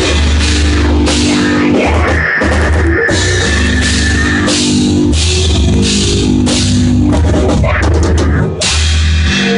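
A band playing loud heavy rock: electric guitar chords over a drum kit with cymbal crashes, with a brief break a little over eight seconds in.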